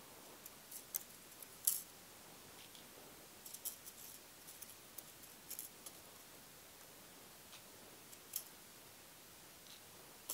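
Faint, irregular light clicks and ticks of small electronic components being picked up and moved one by one on a workbench as they are counted, the sharpest about two seconds in.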